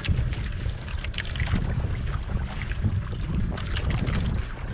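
Wind buffeting the microphone over a low rumble, with water slapping and splashing against the hull of an outrigger fishing canoe at irregular moments.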